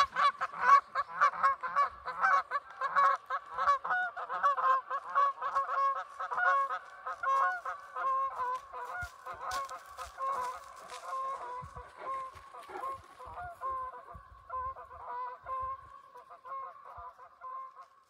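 Canada geese honking over and over as they take off and fly. The calls come thick and overlapping at first, then thin out and fade steadily as the birds fly away.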